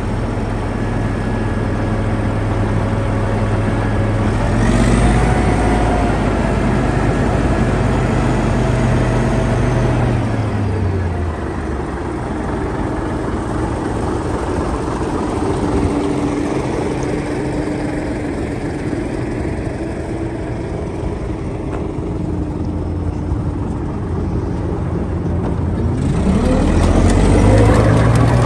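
Diesel engine of a 1977 Caterpillar D8K crawler dozer running loudly. It revs up about five seconds in, settles back to a lower speed around ten seconds, and revs up again near the end.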